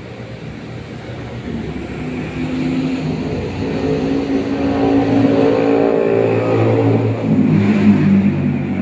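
A motor vehicle's engine running close by, getting louder over the first few seconds, then dropping in pitch about seven seconds in.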